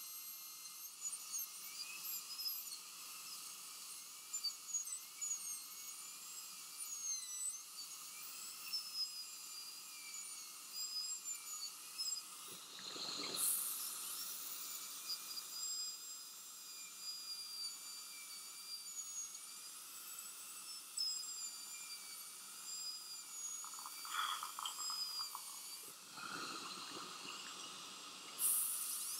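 High-speed dental handpiece with a diamond bur whining at high pitch while cutting a chamfer margin on a front tooth, its pitch wavering as the bur bears on the tooth. There is a brief louder hissing burst about halfway through and another near the end.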